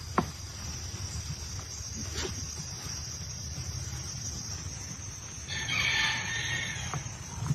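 An animal call lasting just over a second, about five and a half seconds in, over a steady high-pitched tone, with a sharp click near the start.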